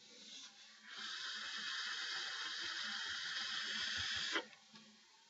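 Long draw on a dual-coil IGO-W rebuildable dripping atomizer built to about 0.6 ohms: a steady hiss of air pulled through the firing coils for about three and a half seconds, cutting off sharply.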